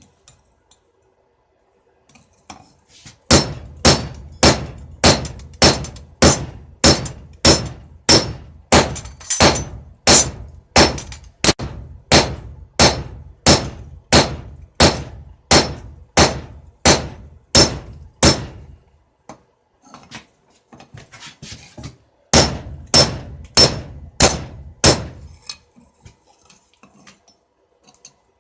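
Blacksmith's hand hammer striking steel on an anvil, each blow ringing, about two a second for some fifteen seconds; after a pause with a few light clinks, a shorter run of blows follows.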